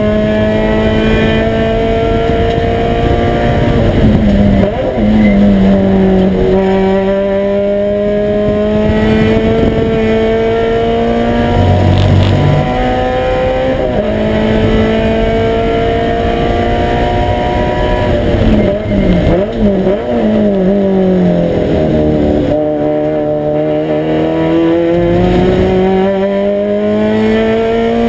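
Toyota 86 race car's 2.0-litre flat-four engine, heard from inside the cockpit under hard acceleration, its pitch climbing through the gears with quick upshifts. About two-thirds of the way in it brakes and downshifts with throttle blips, then climbs again under full throttle.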